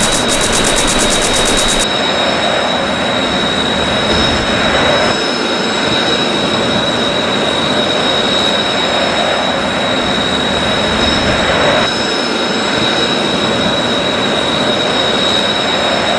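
Jet engine sound effect from the sound unit of a 1/32 F-4EJ Phantom II model: a steady roar with a constant high whine.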